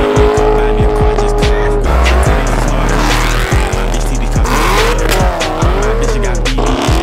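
Cars pulling away hard one after another, engines revving and tyres squealing, with a hip-hop track with heavy bass mixed over them. The pitch holds steady for the first couple of seconds, then rises and falls several times.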